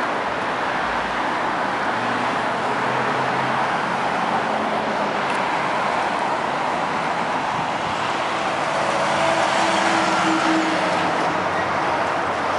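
Steady road traffic noise from passing vehicles, swelling slightly about ten seconds in.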